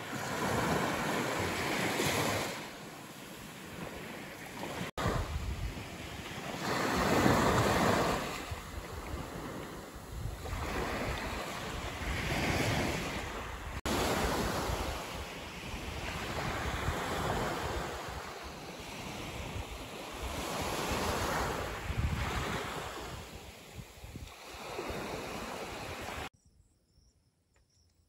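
Sea waves washing in on the shore, the surf swelling and fading every few seconds, with wind buffeting the microphone. The sound cuts off abruptly near the end.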